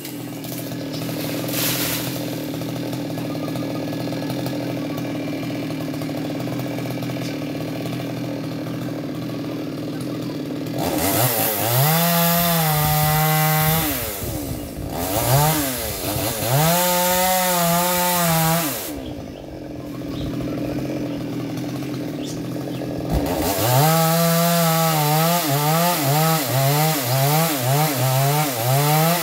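Maestro 6500 two-stroke chainsaw idling steadily, then revved up twice in long pulls around the middle. It drops back and is blipped rapidly in quick rises and falls near the end.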